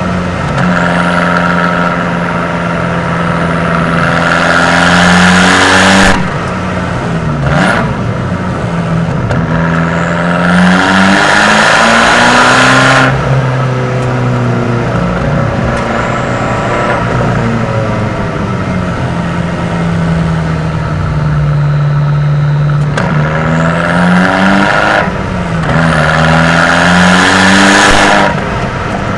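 Abarth 595's 1.4-litre turbocharged four-cylinder through a Record Monza sport exhaust, accelerating up through the gears. The engine note climbs in pitch and drops at each upshift, several times, with a steadier cruising stretch in the middle.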